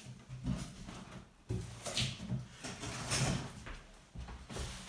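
Large cardboard shipping carton being handled: flaps rustling and the carton scraping and knocking softly as it is lifted.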